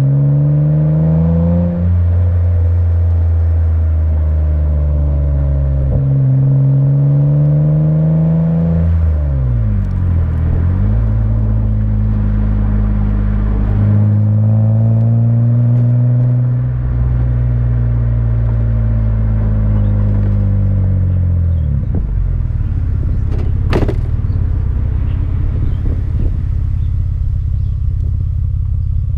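2009 Mitsubishi Eclipse GT's 3.8-litre V6 exhaust while driving: it pulls up through the revs with gear changes about two and nine seconds in, then cruises and eases off, settling to a low steady note for the last several seconds. A single sharp click about two-thirds of the way through.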